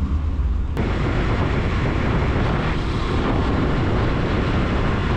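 Single-cylinder Honda motorcycle engine running under way, with wind rushing over a helmet-mounted microphone. About a second in, the sound switches abruptly from a low rumble to a steady, much fuller rush of wind and engine as the bike rides at speed.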